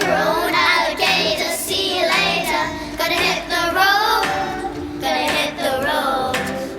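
A young girl singing a pop song over an instrumental backing track with a steady beat.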